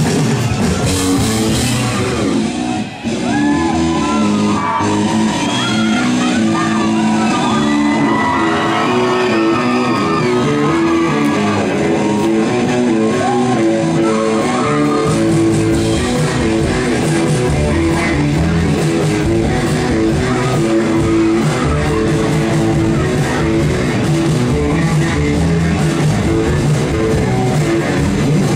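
Live rock band playing with drums, electric guitar, Rhodes electric piano and synthesizer. Through the first half the deep bass drops out and voices from the crowd come through, shouting and singing along. The full band with bass comes back about halfway through.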